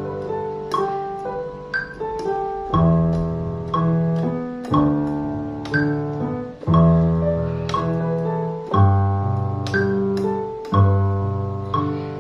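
Piano sound played on a MIDI controller keyboard: chords and a melody, with a new bass note and chord struck about every two seconds, each fading away before the next.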